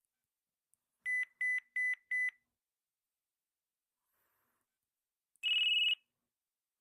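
LG enV cell phone sounding electronic beeps: four quick, evenly spaced beeps about a second in, then a single longer, higher-pitched beep near the end.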